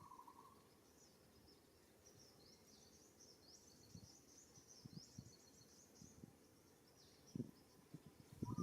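Faint birdsong: a small bird's rapid, high chirping twitter of quick pitch-sliding notes, with a short lower call at the very start. Soft low thumps or rustles come a few times in the second half.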